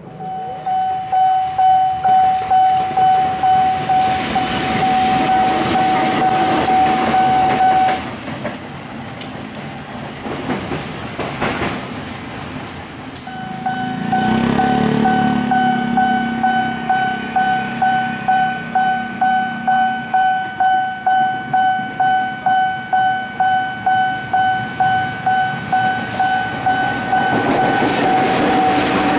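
Level-crossing warning bell ringing: one steady electronic tone pulsing about twice a second, stopping for about five seconds partway through and then starting again. Soon after it resumes a motorcycle engine passes, and near the end a diesel locomotive comes through the crossing.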